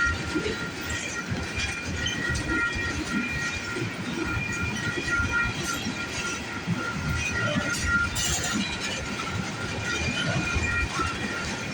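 Freight train tank cars rolling slowly past at close range: an uneven low rumble with scattered clicks of wheels over the rail, and a thin, steady high squeal from the wheels.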